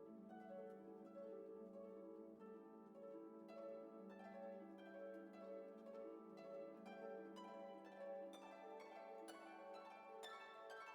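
Quiet background music: plucked, harp-like notes over held tones, the plucked notes growing busier partway through.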